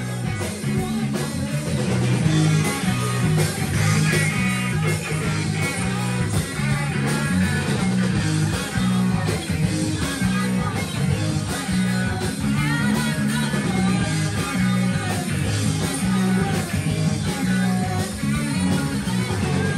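Rock band playing a song live, electric guitar to the fore over a steady beat.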